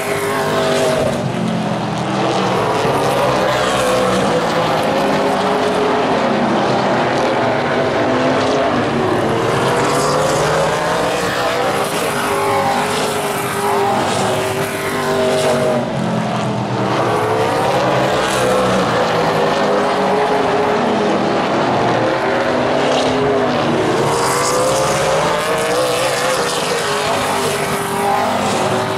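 A field of Super Late Model stock cars racing on a short oval track. Several V8 engines run at once, each rising in pitch as the cars accelerate and falling as they lift for the turns, over and over.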